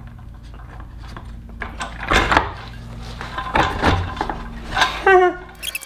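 Several knocks and clunks from a metal hose reel bracket being set down over bolts on a wooden board and handled while nuts are fitted, over a steady low hum.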